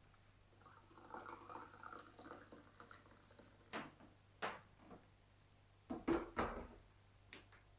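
Quiet kitchen handling sounds: a brief soft trickle of liquid, then a few sharp knocks and clatters of dishes or utensils, the loudest cluster a little after the middle.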